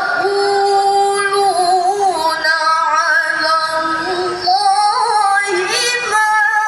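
A female reciter chanting the Qur'an in the melodic tilawah style: long held notes with ornamental turns and pitch slides, phrase after phrase.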